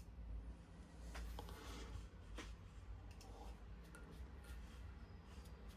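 Near silence: quiet room tone with a low hum and a few faint clicks.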